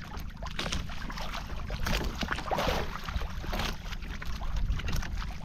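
Wind buffeting the microphone and water washing against the hull of a small outrigger boat at sea, with a steady low rumble and uneven surges, the biggest about halfway through.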